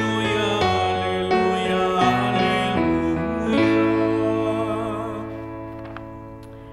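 Sung Gospel acclamation, a voice with instrumental accompaniment, ending on a long held chord that fades away near the end.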